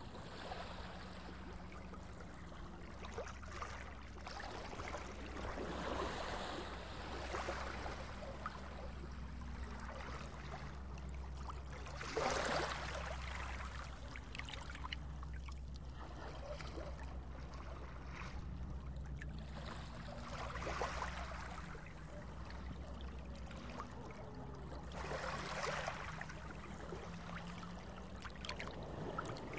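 Water rushing and splashing in uneven swells over a steady low rumble, the sound of a boat moving through water. The loudest swell comes about twelve seconds in.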